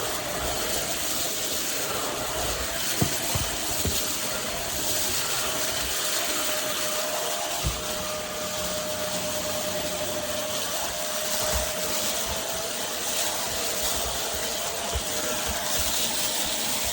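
PRETTYCARELIFE cordless stick vacuum running: a steady motor whine over a rush of air, with a few short knocks as the head moves over the floor.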